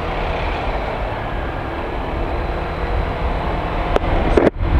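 Honda Click 125i scooter's single-cylinder engine running at a steady cruise, mixed with wind and road rumble. The sound briefly cuts out near the end.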